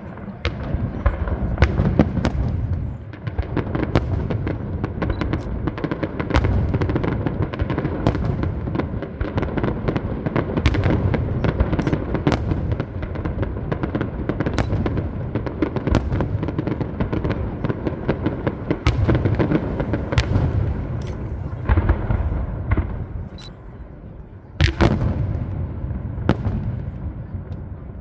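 Fireworks display at full intensity: a dense, continuous barrage of shell bursts and crackling reports over a rumbling low booming. It thins near the end, with one loud single burst shortly before.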